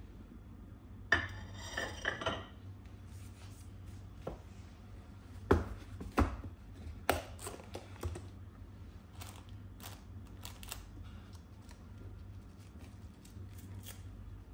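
Light knocks and clinks of things being handled and set down on a hard surface. There is a cluster of ringing clinks about a second in, the loudest knocks come around five to seven seconds in, and fainter ticks follow, all over a low steady hum.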